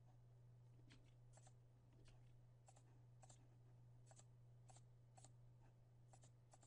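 Near silence: faint, sharp computer mouse clicks, about a dozen spread through and some in quick pairs, as a setup wizard is clicked through. A steady low hum runs underneath.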